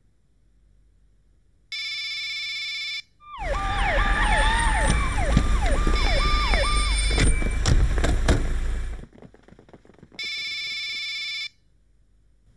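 A phone's electronic ringtone sounds in a short steady burst. Then several police car sirens wail and yelp, a falling tone repeating about twice a second, over a heavy low rumble with a few sharp knocks. About ten seconds in, the ringtone sounds once more.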